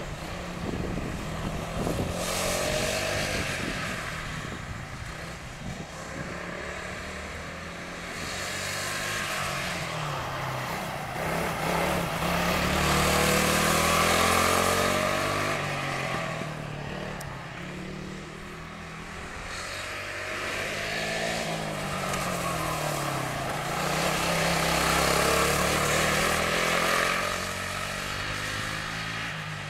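Sodi RX250 rental karts lapping a wet track. The engines rise and fall in pitch as the karts accelerate and brake, with a hiss of tyres on the wet asphalt. Three louder passes come about 2 seconds in, around the middle and near the end.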